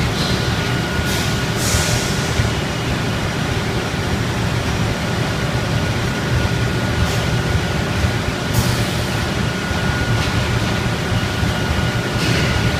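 Spray-drying plant machinery running with a steady low hum and a thin steady high tone, broken by a few short hissing bursts.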